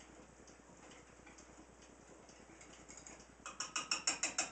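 Pancake batter being beaten by hand with a utensil in a mixing bowl: faint light ticking at first, then, about three and a half seconds in, a rapid run of clicks against the bowl, about seven a second.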